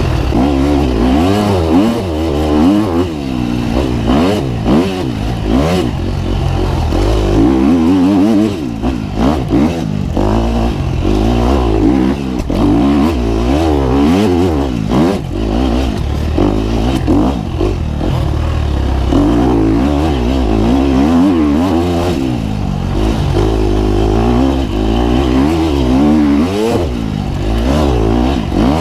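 KTM 250 XC-F four-stroke dirt bike engine revving up and down constantly as it is ridden hard over rough off-road ground, with frequent knocks and clatter from the bike.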